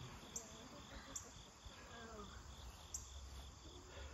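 Insects chirping in a steady pulsing rhythm, about four pulses a second, with a few faint light clicks.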